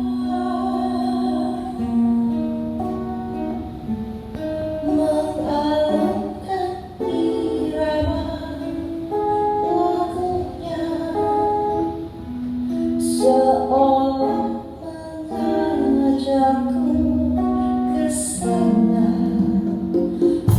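Music: a song with a singing voice over plucked string accompaniment, its notes held and changing throughout.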